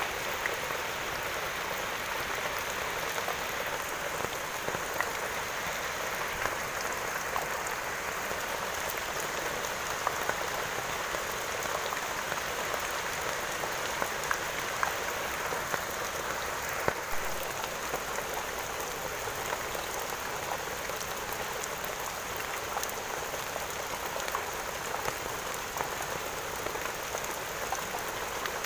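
Steady rain falling on a surface, with many individual drops ticking sharply over a continuous patter.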